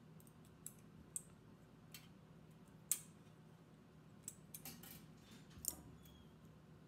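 Scattered small clicks and ticks of small metal binder clips and 18-gauge wire being handled and clipped onto a wire-wrapped agate slice. The sharpest click comes about three seconds in.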